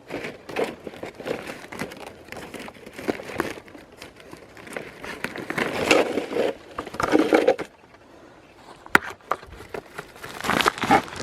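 Irregular crinkling and rustling of litter and plastic trash bags being handled, with a sharp click about nine seconds in.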